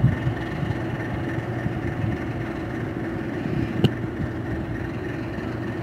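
Diesel engine of a purse seine fishing boat running steadily as it heads out of the harbour, a low steady hum. A single sharp click a little after the middle.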